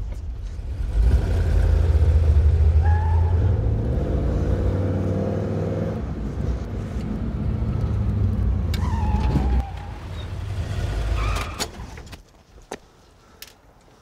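Car engine running as it drives along at low speed, getting louder about a second in, then dying away as the car pulls up and stops. A couple of light clicks near the end.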